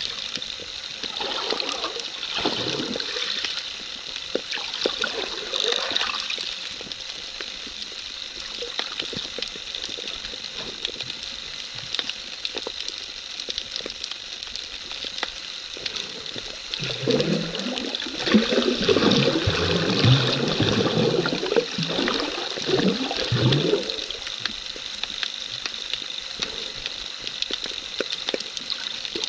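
Underwater ambience picked up by a camera resting on the sea bed: a steady hiss dotted with many small clicks, with low surging whooshes of moving water that grow louder in the second half.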